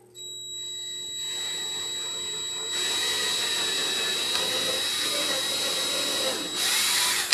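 Electric drill running a bit into a pine board: a steady motor whine over the grind of the bit cutting wood, getting louder about a second in and again about three seconds in, then stopping abruptly near the end.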